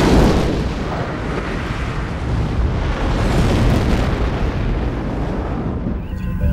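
Film sound effect of a shockwave hitting a spacecraft: a sudden explosive blast, then a long rumbling roar that swells again a few seconds in and eases off near the end.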